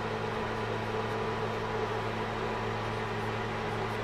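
Steady machine hum: a low, unchanging drone with a few fixed tones over a soft hiss.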